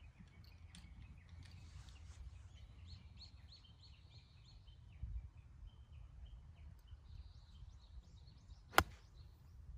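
A 56-degree golf wedge striking the ball once near the end, a single sharp crack. Before it, birds chirp faintly over a low background rumble.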